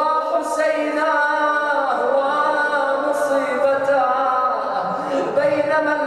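A male reciter chanting an Arabic mourning elegy solo, in long held notes that waver and slide in pitch.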